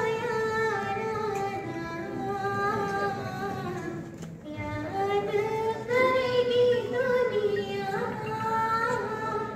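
A high voice singing a slow melody in long held notes, with a short break about halfway.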